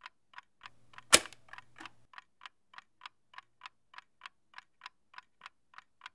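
A clock ticking steadily, about three ticks a second, with one sharp, much louder click about a second in.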